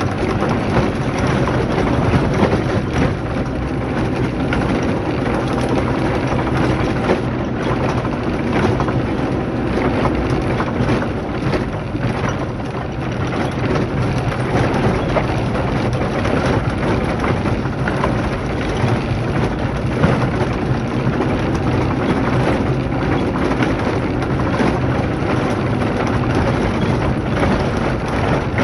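A car driving along a rough gravel track, heard from inside the cabin: the engine runs with a steady low hum under a constant crackle of the tyres on loose stones.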